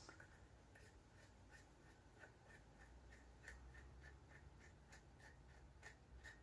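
Near silence with a run of faint light ticks, about three a second, starting about a second in.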